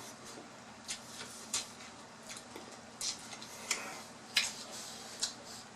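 A person chewing food with the mouth close to the microphone: a string of short wet clicks and smacks at irregular intervals, roughly one or two a second.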